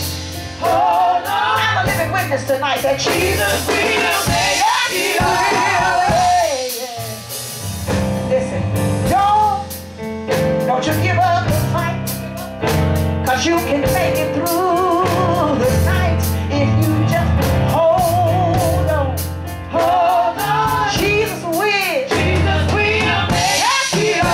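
Live gospel music: a woman singing with long melismatic runs and wide vibrato into a microphone, backed by keyboard and drum kit with a steady beat.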